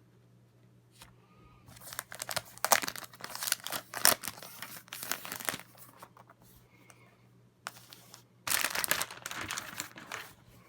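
Thin plastic protective film being peeled off a MacBook Pro, crinkling and tearing in two spells, the second one near the end.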